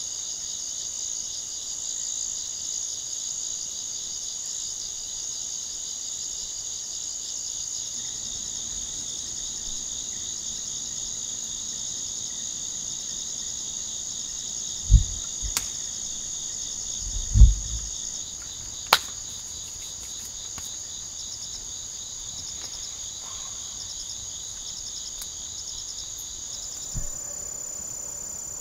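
Steady, finely pulsed high chirring of a night chorus of crickets and other insects in tropical forest. Partway through come a few low thumps, the loudest sounds, and a couple of sharp clicks. Near the end the lower part of the chorus stops and a different, thinner chirring carries on.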